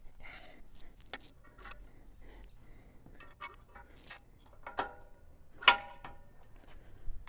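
Pliers clicking and clinking on the steel top link and jam nut of a tractor's three-point hitch as the nut is worked loose. About five and a half seconds in there is one sharp metallic clank that rings briefly.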